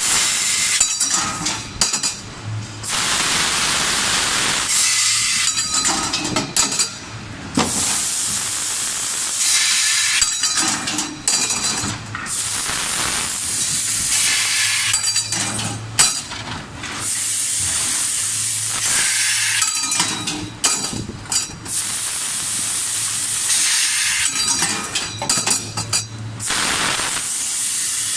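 Laser pipe cutting machine cutting thin-walled metal tube: the assist-gas jet at the cutting head hisses in repeated stretches of a few seconds with short breaks between cuts, over a steady machine hum. A few sharp clinks are heard among them.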